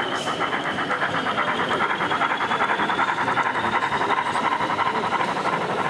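DCC sound-fitted model steam locomotive giving a fast, even chuff, with a thin steady high whine above it.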